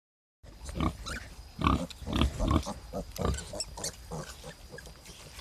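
Nursing sow grunting in a steady series of short grunts, about two a second, while her two-week-old piglets suckle.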